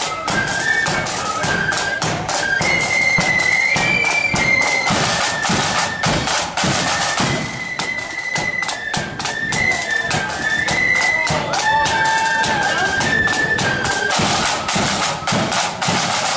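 Marching flute band playing: a shrill flute melody over massed side drums beating rapid, dense strokes.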